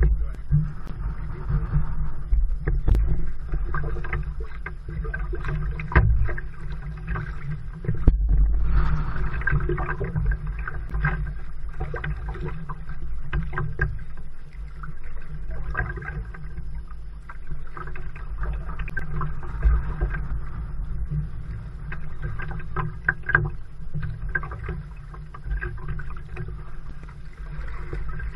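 Water slapping and splashing irregularly against a kayak's hull as it moves through choppy water, heard from just above the waterline, over a steady low wind rumble on the microphone.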